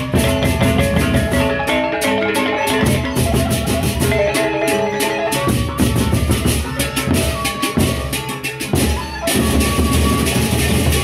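Lombok gendang beleq ensemble playing: large Sasak barrel drums beaten in a fast, dense rhythm over ringing bronze gongs and cymbals. The playing grows fuller and busier about nine seconds in.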